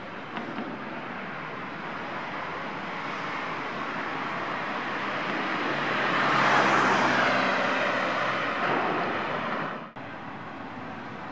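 A passing vehicle: its noise swells slowly to a peak about two-thirds of the way through, with a low engine hum, then fades and cuts off abruptly, leaving a quieter steady street background.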